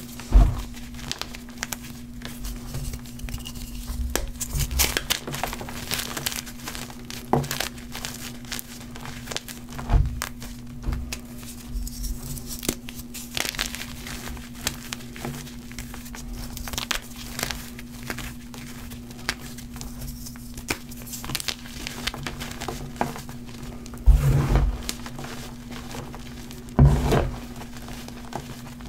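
Green gym chalk crushed and crumbled by hand into loose powder: a dense run of dry crunching and crackling. A few heavier thuds of the hands pressing into the pile come just after the start, about a third of the way in, and twice near the end, over a steady low hum.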